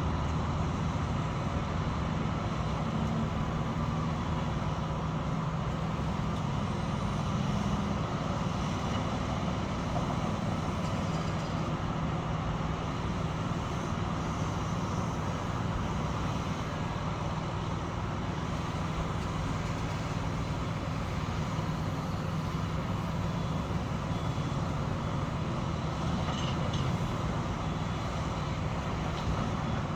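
Heavy construction machinery running steadily, a constant low engine drone without breaks.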